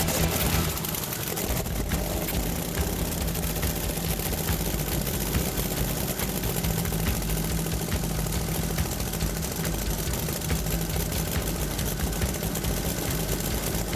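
Supercharged racing-boat engine running steadily at idle.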